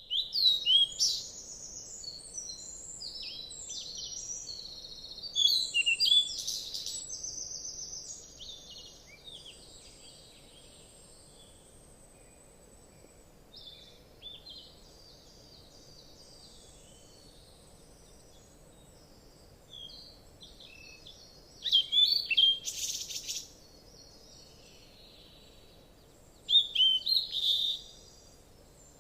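Small birds chirping and trilling in quick, high bursts, loudest at the start, a few seconds in, and in two flurries near the end, with softer scattered chirps between, over a faint steady hiss.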